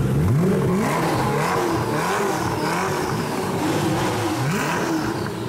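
Koenigsegg Agera's twin-turbo V8 being revved while the car stands, blipped several times so the engine note rises and falls in pitch.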